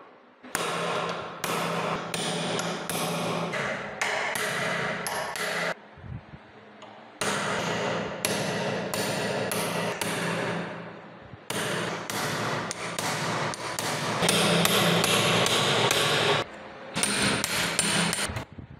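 A hammer striking a steel punch held on a rivet head of a rusty padlock clamped in a vise, to drive the rivets out. The blows are sharp and ringing, about two a second, in runs of several seconds with short pauses between them.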